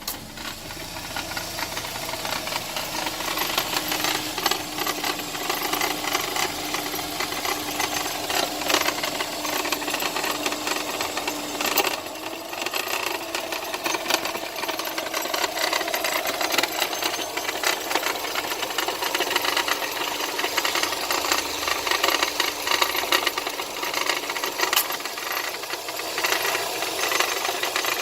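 Subaru Impreza GH8's engine idling with a dense metallic rattle, like a screw rolling around, which the owner places around the alternator. It is an abnormal noise that starts and stops suddenly; the idle itself is smooth.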